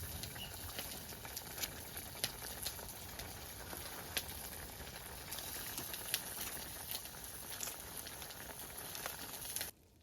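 Food cooking over heat, bubbling and sizzling with frequent small pops and crackles. It cuts off suddenly just before the end.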